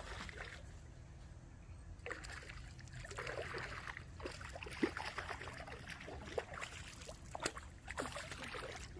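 Water sloshing and trickling, with scattered small clicks and knocks over a steady low rumble.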